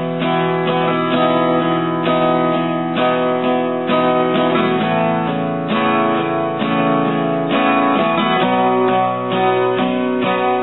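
Instrumental break of a song: acoustic guitar strumming chords, changing chord every few seconds.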